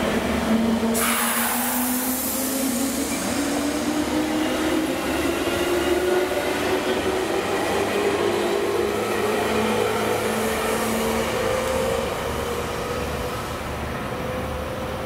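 JR Central 211-series electric train moving off, its motor and gear whine rising steadily in pitch over the rumble of wheels on rail as it gathers speed. A sudden hiss breaks in about a second in and fades over the next two seconds, and the whole sound lessens near the end as the train draws away.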